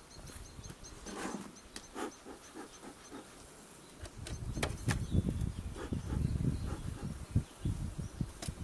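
Honeybees buzzing at an open hive, with a few sharp knocks and a bee smoker puffing as the hive's cover board is lifted off about halfway through. A low rumble runs through the second half.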